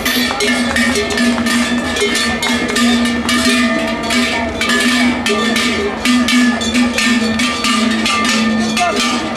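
Cowbells on a team of oxen clanging irregularly and continuously as the animals walk in harness, pulling a cart.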